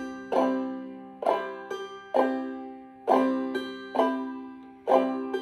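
Five-string banjo played clawhammer style on open, unfretted strings: a loud downstroke strum about once a second, each followed by a smaller, quieter thumb pluck of the fifth string, the basic 'bum-diddy' pattern.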